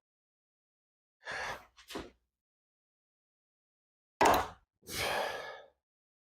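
Strained breathing while a cheap chrome-vanadium socket set is forced with a wrench, then a single sharp, loud snap about four seconds in as the part gives way, followed by a long exhale.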